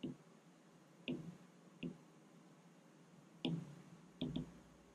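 Apple Pencil tip tapping on the iPad's glass screen: about six light, separate taps, two in quick succession near the end.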